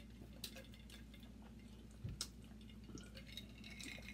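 Quiet eating sounds: faint clicks and crackles of crab shell being picked apart by hand, with a soft thump about two seconds in.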